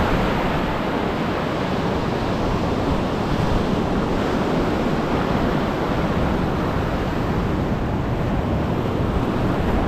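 Ocean surf breaking and washing up over shallow sand in a steady wash, with wind rumbling on the microphone.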